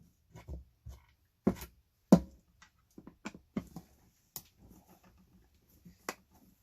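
Parts and tools being handled and knocked on a workbench while an air mattress pump is taken apart: a string of separate sharp knocks and clicks, the loudest two about one and a half and two seconds in.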